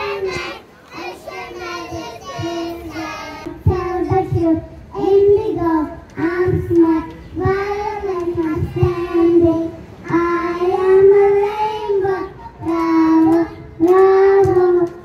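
A group of preschool children singing a song together into microphones, in a run of short phrases of held notes.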